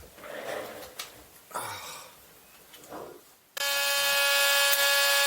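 A few quiet knocks and rustles of handling, then about three and a half seconds in a power cutting tool starts suddenly and runs with a steady high whine. It is cutting a slot into a stripped screw head so that the screw can be undone with a flat-blade screwdriver.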